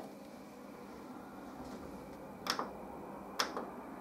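Two sharp clicks about a second apart, a power button pressed on the front panel of a Pioneer VSX-D2011 receiver, which stays in standby.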